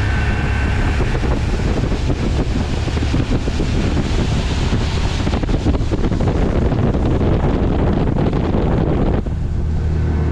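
Motorboat running at speed: heavy wind on the microphone and rushing water over a steady low engine drone. About nine seconds in, the wind and water noise drops away abruptly, leaving the steady engine hum.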